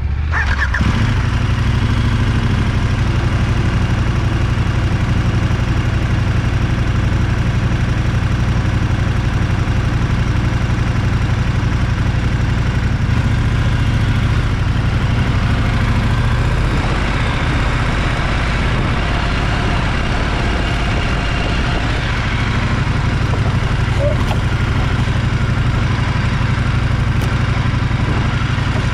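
Adventure motorcycle engine running steadily at an even, low pitch with no revving.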